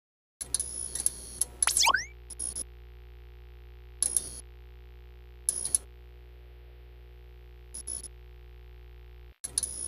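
Synthesized sci-fi interface sound effects: a steady low electronic hum under short bleeps and clicks, with a quick run of rising chirps about two seconds in and then single blips a second or two apart.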